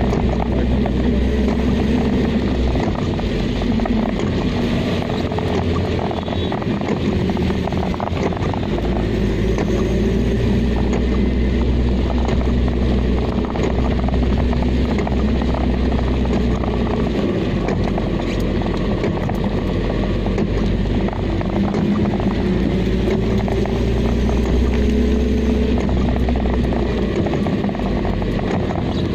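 Car engine and tyres on a wet road, heard from inside the cabin while driving: a steady low drone with tyre hiss, the engine note slowly rising a couple of times as the speed changes.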